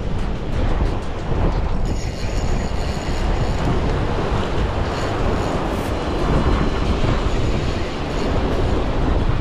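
Heavy wind buffeting the microphone over sea surf, with a brief high whirring from a Shimano Saragosa spinning reel about two seconds in, as a hooked fish pulls against a hard-bent rod.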